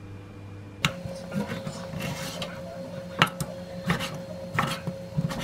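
A steady hum, then from about a second in a knife cutting raw fish fillet on a wooden chopping board: irregular knocks of the blade meeting the board, the loudest a little past three seconds in.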